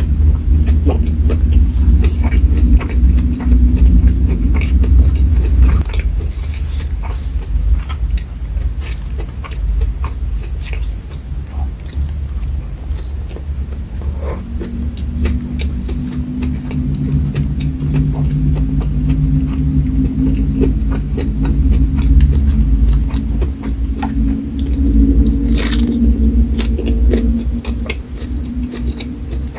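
Close chewing and biting of a meal of rice, fried shrimp, sambal matah and raw lettuce eaten by hand, with wet mouth sounds and scattered crunches. One sharper crunch comes near the end.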